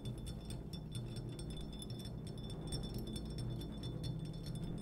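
Sparse electronic sound-design score: a steady low hum under a thin, steady high whine, with many small irregular clicks and crackles scattered through it.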